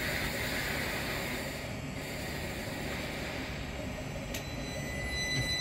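Hiss of air from a Northern electric multiple unit standing at the platform, slowly fading, then a click about four seconds in and a steady high-pitched whine from the train as it gets ready to pull away.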